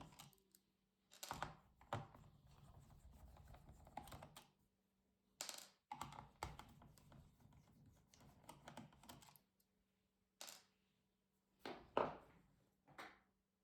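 Scattered plastic clicks, taps and short scrapes from the casing of an HP Pavilion 17-f laptop being handled and taken apart. The loudest knock comes about twelve seconds in.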